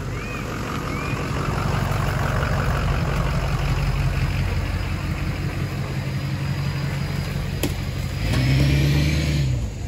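Ford Super Duty dual-rear-wheel pickup driving slowly past while towing an empty tandem-axle car trailer. Its engine sound builds over the first couple of seconds, holds steady, and swells loudest near the end with a faint rising whine.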